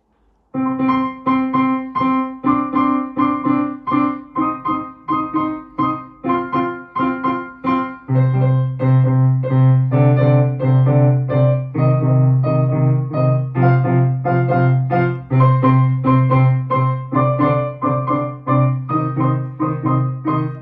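Four-hand piano duet on a digital piano: evenly repeated notes and chords start about half a second in, and a louder bass part joins about eight seconds in.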